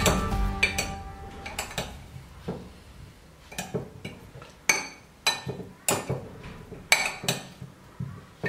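Metal spoon clinking and scraping against a glass dish while boiled small potatoes are tossed with oil and seasoning: about a dozen sharp clinks at uneven intervals.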